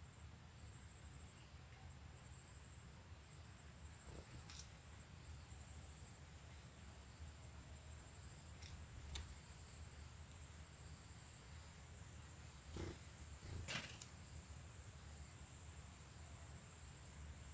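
High-pitched insect chorus, a steady shrill buzz that grows steadily louder, with a few faint soft knocks or rustles scattered through it.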